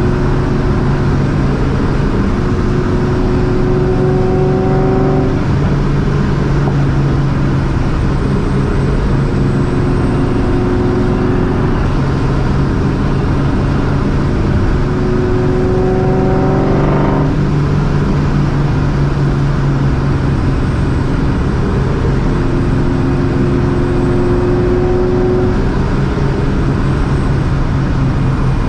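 Straight-piped, Vortech-supercharged 2004 Ford Mustang GT's 4.6-litre V8 pulling through the gears. The engine note climbs in pitch and drops back at each shift, four times, over a continuous loud exhaust.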